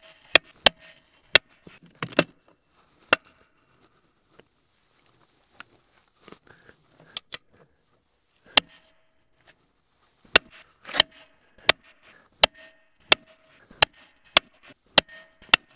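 Tekton click-type torque wrench clicking as a tractor's rear wheel lug nuts are tightened: sharp single clicks, a few scattered at first, then a steady run of about three clicks every two seconds in the second half.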